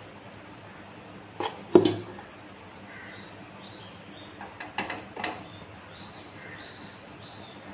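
Metal serving spoon knocking against a cooking pot as cooked rice is scooped and dropped in: a few sharp clinks, the loudest about two seconds in and a quick cluster around five seconds.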